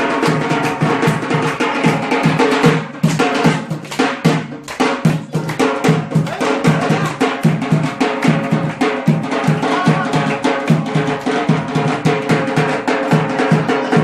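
Traditional drums (tabl) beaten in a fast, steady dance rhythm, many strokes a second.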